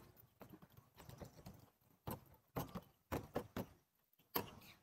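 Hands patting and pressing balls of scallion-pancake dough flat on a stainless steel counter: a run of soft, irregular taps.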